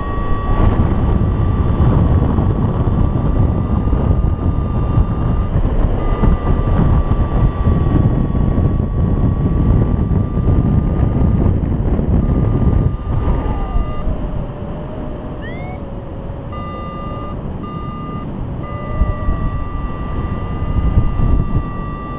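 Wind rushing over the microphone in paraglider flight, with a variometer giving a high steady electronic tone that breaks off now and then and turns into short separate beeps about two-thirds of the way through. A second, lower tone slides downward for a few seconds in the middle.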